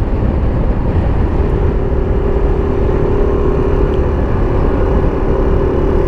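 Motorcycle engine running at a steady cruise while riding, with a dense low rumble of road and wind noise and a steady engine tone that settles in about a second in.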